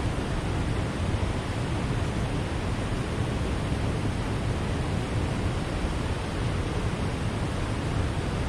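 Steady rushing of water flowing below a dam, an even roar that does not change.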